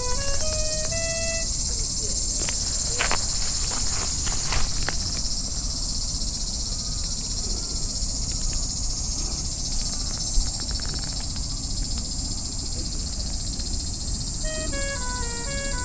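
A steady high-pitched insect chorus, unbroken throughout. A few faint clicks come a few seconds in, and a short melody of stepping notes plays at the start and again near the end.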